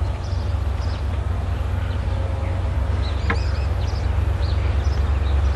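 Steady low rumble with small birds chirping now and then, and a single sharp click a little over three seconds in.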